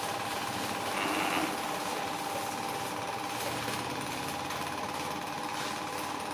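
Electric power tool running steadily with a fast, even buzz, a little louder for a moment about a second in.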